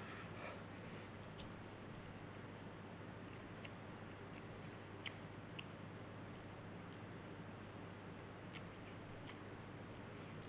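A person slurping and chewing ramen noodles, with a slurp right at the start and a few short sharp clicks scattered through, over a steady low hum.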